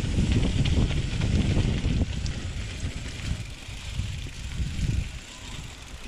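Mountain bike rolling fast down a dirt and gravel trail: tyre rumble with wind buffeting on the camera microphone, growing quieter from about two seconds in as the bike slows.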